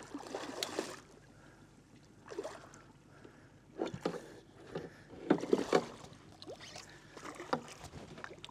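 Hooked barramundi thrashing and splashing at the surface beside the boat in irregular bursts, the loudest about five to six seconds in.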